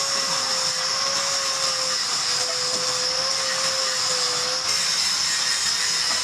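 A motor-driven workshop tool or machine running steadily, a continuous whine with a slightly wavering tone over a hiss.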